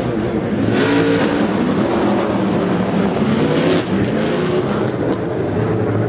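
Race car engines running nearby, a loud steady drone whose pitch shifts up and down.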